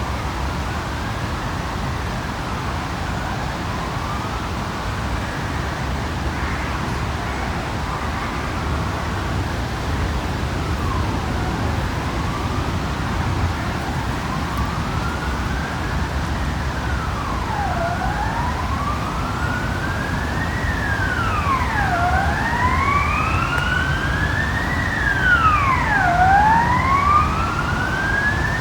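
Emergency vehicle siren wailing in slow sweeps, each rising over a few seconds and then dropping quickly. It is faint at first and grows louder toward the end, over a steady rumble of city traffic.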